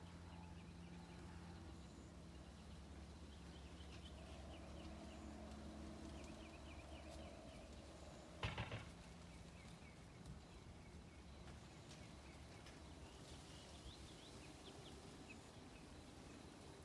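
Faint birds chirping in quick series of short notes over a steady low hum, with one sharp knock about halfway through.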